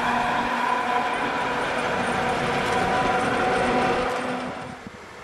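Vintage museum tram passing on the track: steady wheel-and-rail noise with a whine over it, which fades away about four seconds in as the tram moves off.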